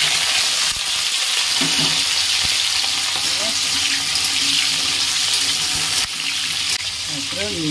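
Pieces of pointed gourd and potato sizzling in hot oil in a kadai, a steady, loud frying hiss that eases slightly about six seconds in, as they are stirred with a flat metal spatula.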